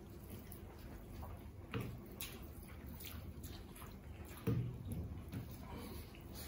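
Close, quiet eating sounds: chewing and hands squeezing and mixing curry-soaked rice and pork, with small wet clicks. Two short louder mouth sounds stand out, about two seconds in and about four and a half seconds in.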